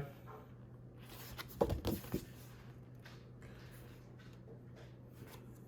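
Faint handling of unboxing contents, likely the paper quick start guide: a few soft taps and rustles about a second and a half to two seconds in, over a steady low hum.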